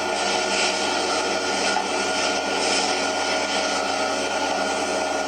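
A steady mechanical drone with several constant tones, running evenly without a break.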